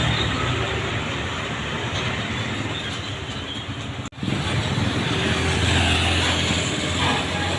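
Road traffic passing close by: a steady rush of vehicle noise, cut off abruptly for an instant about four seconds in, then a deep engine rumble from a heavy vehicle such as a bus.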